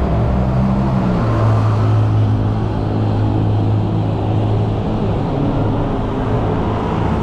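Motor traffic on a busy city road: a vehicle engine gives a steady low hum over the wash of road noise, its pitch dropping slightly about a second in.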